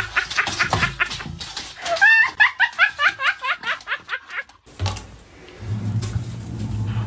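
A person laughing hard in quick, repeated bursts of 'ha-ha-ha' that rise and fall in pitch. The laughter cuts off abruptly a little over four and a half seconds in, and a low, steady hum follows.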